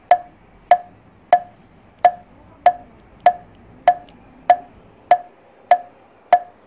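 Comic 'crickets' sound effect for an awkward silence: a short dry chirp repeated evenly, about three every two seconds, stopping near the end.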